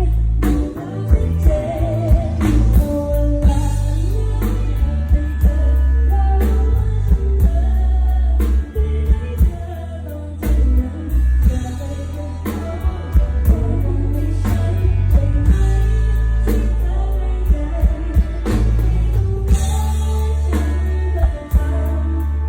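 A singer performing a Thai pop song live with a band, over strong bass and a steady drum beat.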